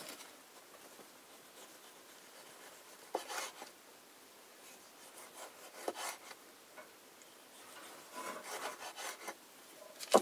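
Kitchen knife slicing a tomato on a wooden cutting board: soft cutting and rubbing, with two short knocks of the blade on the board and a stretch of scraping near the end.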